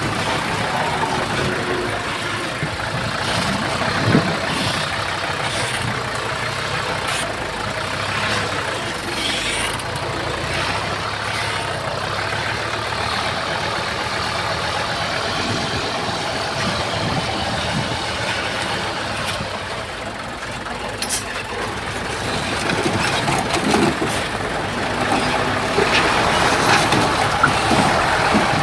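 Heavy earthmoving machinery running steadily: the engines of a bulldozer and dump trucks working, with a few short knocks and clanks, growing a little louder near the end.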